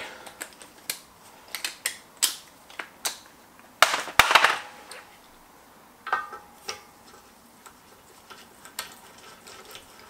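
Metal clicks and clinks of wheel bolts and a socket on an extension being worked by hand into an alloy wheel's bolt holes: an uneven scatter of sharp taps, with a louder cluster about four seconds in and a few taps that ring briefly around six seconds in.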